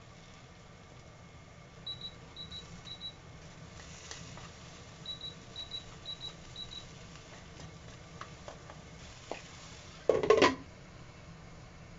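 Kitchen timer going off with high double beeps, three pairs then after a short pause four more: the 10-minute timer for the simmering taro has run out. About ten seconds in, a glass lid clatters onto a frying pan, the loudest sound.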